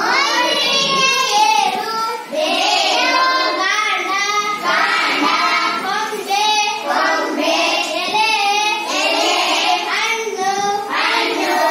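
A child's voice singing a song or rhyme, with brief pauses between phrases.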